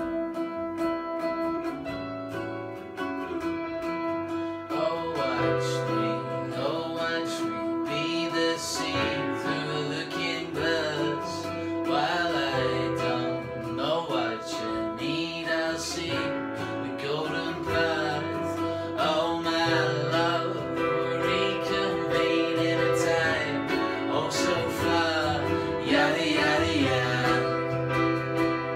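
A steel-string acoustic guitar strummed and a keyboard played together as a live song, with a male voice singing from about five seconds in.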